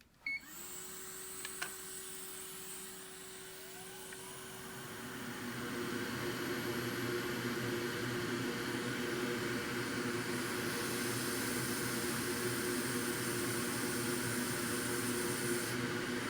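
Hot air rework station switching on with a click, its blower fan running with a steady hum and rushing-air hiss that grows louder after about five seconds, heating a chip until its solder melts.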